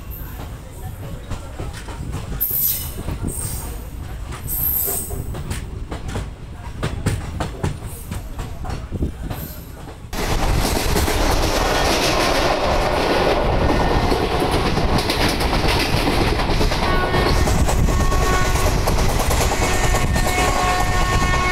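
Indian Railways ICF passenger train heard from an open coach door: wheels clicking over the track with a few brief high squeals on the curve. About ten seconds in, the sound jumps suddenly to louder, steady running noise at speed, and a few steady tones join it near the end.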